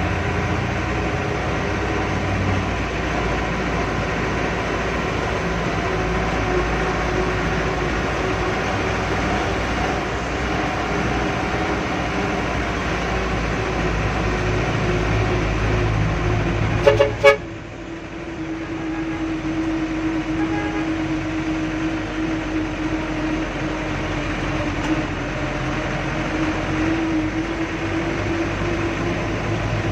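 A 1996 Mitsubishi 120 PS diesel bus engine running under way, heard from inside the cabin. Just before halfway there are two short horn toots, after which the low rumble falls away and a steadier, quieter hum carries on as the bus eases off in traffic.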